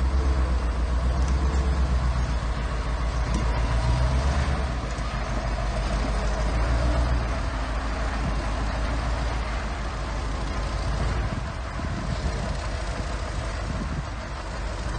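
Diesel engine of heavy earthmoving machinery running steadily with a deep low rumble, a little softer in the second half.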